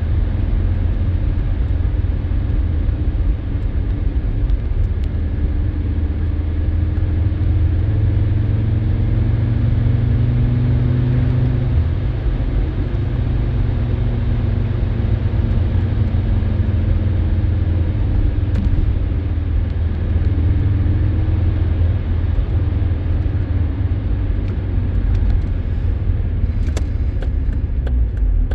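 Audi 90 B2's five-cylinder engine running steadily with a deep rumble, its pitch drifting slowly up and down.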